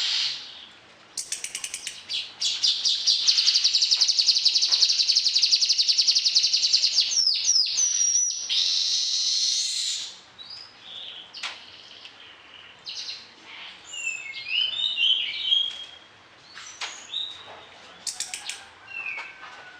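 Orange-headed thrush singing in full voice with mimicked fill phrases: a long, loud, rapid buzzy trill for about six seconds, a few quick downward slurs, a harsh hissing stretch, then short varied whistled phrases.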